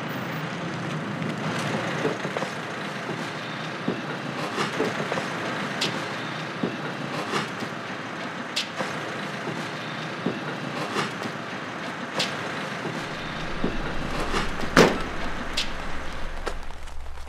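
Building-site background noise: a steady rumble of vehicles and machinery with scattered sharp knocks, about one every second or two, the loudest about three-quarters of the way through. A low hum joins near the end.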